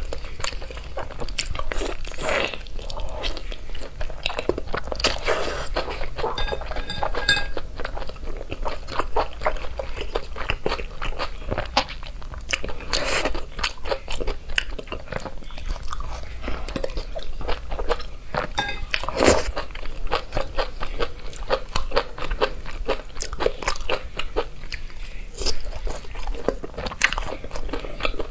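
Close-miked eating of sauce-coated fried food skewers: continuous biting, chewing and wet mouth sounds, with a few louder bites standing out.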